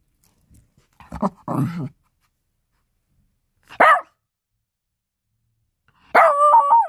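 Small dog vocalising: two low, rough grumbles about a second in, a single short bark just before the middle, then a longer wavering bark-howl near the end.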